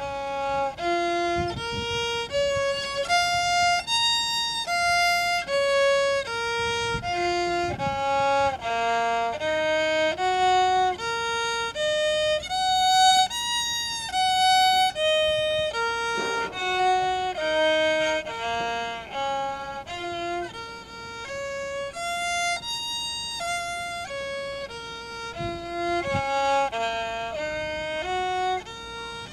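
Violin played by a young child: a B-flat minor scale in first position, one bowed note at a time in even steps, climbing and descending in repeated runs.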